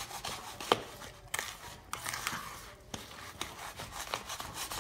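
A spoon stirring thick flour-and-milk batter in a bowl: irregular scraping and rubbing strokes against the bowl's side, with a sharp knock about three-quarters of a second in.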